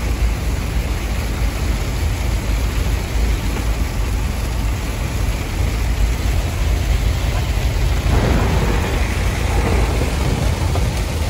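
Heavy rain and road noise inside a moving semi truck's cab, over the low rumble of the engine: a loud, steady wash of sound.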